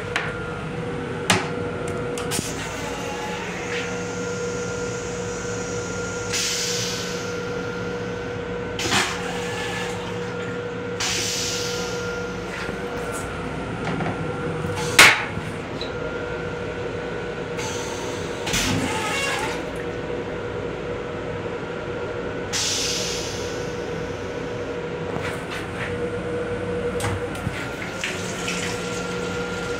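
Steady hum of an M7 electric commuter railcar running, with constant tones, heard inside its restroom. Several short hissing bursts and a few sharp knocks break in; the loudest knock comes about halfway through as the toilet seat is handled. Water runs from the sink faucet near the end.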